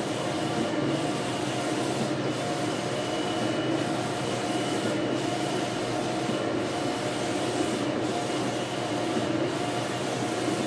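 Wide-format sublimation inkjet printer running, its print carriage shuttling back and forth across the media: a steady mechanical whir and hiss that briefly drops out about every second and a half.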